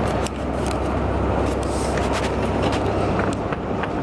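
Railway station platform noise: a steady low hum and rumble with many short clicks and taps scattered through it.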